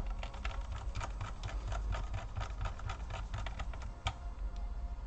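A quick run of light clicks and taps, several a second, from small tools and parts being handled on a laptop's plastic case during reassembly. The clicks thin out about four seconds in.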